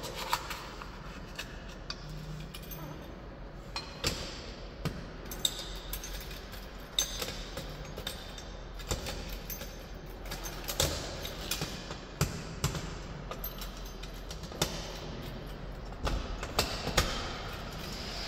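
Irregular clicks and light knocks of hands working small metal and plastic parts: a door-handle alarm unit and its screws being handled and fitted on a metal fire door. A few of the clicks are sharper than the rest.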